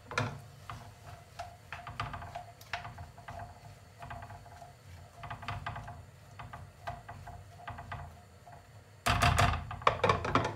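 Chopped onions frying in olive oil in a pot, crackling and popping irregularly as they caramelise, with a louder burst of clatter about nine seconds in.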